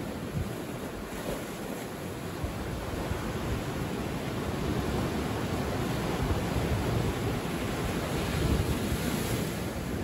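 Sea waves breaking and washing in among rocks on a sandy shore: a steady rush of surf that grows a little louder in the second half.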